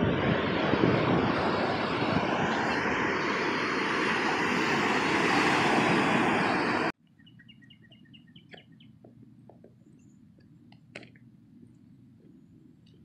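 Wind buffeting the microphone over the wash of beach surf, cutting off abruptly about seven seconds in. A much quieter spot follows, where a small bird gives a quick run of about eight chirps, then a few faint ticks.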